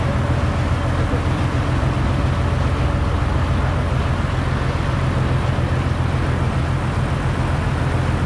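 Cross-river ferry's engine running steadily with a low drone, heard on board with a haze of water and wind noise over it.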